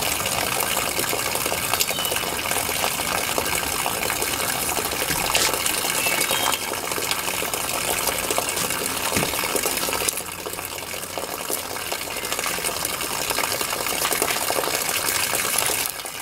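Water running steadily from a garden hose onto a wooden cutting board, a little quieter from about ten seconds in.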